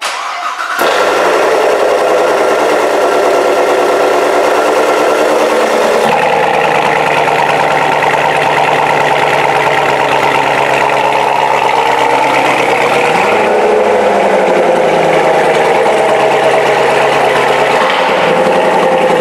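Corvette Z06's supercharged 6.2-litre V8 starting through its quad-tip exhaust: it catches loudly within the first second, runs at a fast idle, then settles about six seconds in to a lower, deeper steady idle.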